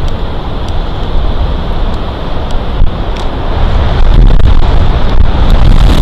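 Severe windstorm gusting hard over the nest camera's microphone high in a pine tree: a loud, low, rumbling buffet of wind noise that grows stronger about four seconds in.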